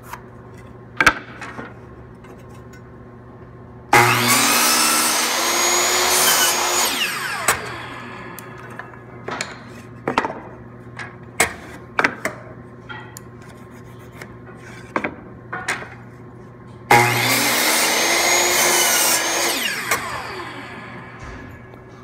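Power miter saw started twice, about four seconds in and again about seventeen seconds in: each time the motor spins up, the blade cuts a 45-degree angle through a 3/4-inch-thick 1x6 board, and the blade winds down over a few seconds. Light taps and knocks of the board being handled between the two cuts.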